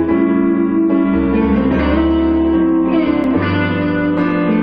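Live band playing: electric guitar over an electric keyboard, with low sustained bass notes.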